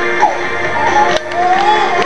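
Music playing, with a melody that rises and falls in pitch over steady held notes.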